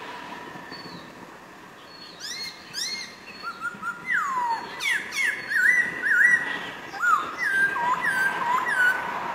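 Black-throated laughingthrush singing loud, clear whistled notes, starting about two seconds in. Its rising phrases give way to one long falling whistle and then a quick run of short, repeated, up-and-down notes.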